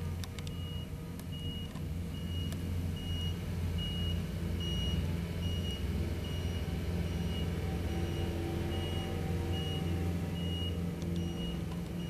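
Road roller's diesel engine running with a steady low drone while its reversing alarm beeps evenly, about every half second.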